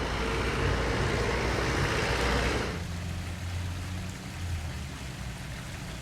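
Classic rally car engine and road noise, loud for the first three seconds, then dropping off abruptly to a lower engine rumble.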